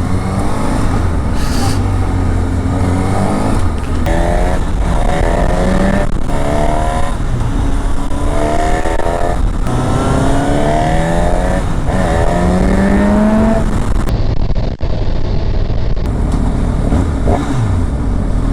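Honda Hornet 1000's inline-four engine accelerating hard again and again, its pitch climbing through each gear and dropping back at every shift.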